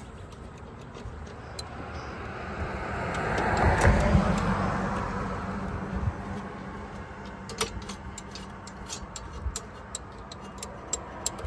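A passing vehicle, its noise swelling to a peak about four seconds in and fading away. Toward the end, a ratchet with a 13 mm socket clicks in quick runs as the bolts on the engine-bay brace are undone.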